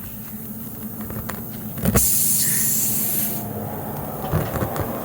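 Air hissing out of a punctured car tyre as a reamer tool is worked into the puncture to roughen and enlarge it for a plug: light scraping ticks of the tool, then a sudden loud hiss about two seconds in that lasts over a second.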